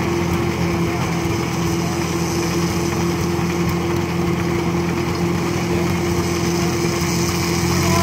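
An engine powering an old circular sawmill, running steadily at a constant speed with an even hum. No saw cut is heard.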